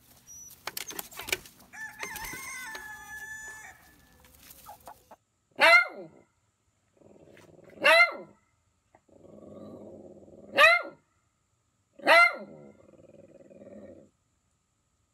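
A rooster flapping its wings and calling briefly. Then a small dachshund barks four times, sharp and loud, at its own reflection, growling low between the barks.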